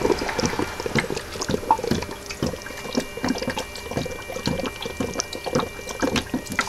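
Electrolyte bubbling and gurgling hard in an HHO dry cell's plastic reservoir as hydrogen-oxygen gas streams up through the baking soda solution: irregular, rapid popping of bubbles, the sign of heavy gas production from the strong electrolyte.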